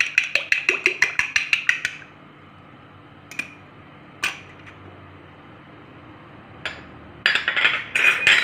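A fork beating an egg in a small ceramic bowl: rapid even clinks about six a second that stop about two seconds in. Two single knocks follow, and near the end a short burst of clattering and scraping.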